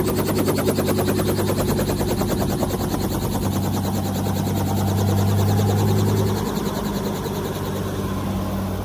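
Light two-blade helicopter running on the ground with its main rotor turning: a fast, even chopping beat over a steady engine hum. It gets a little quieter about six seconds in.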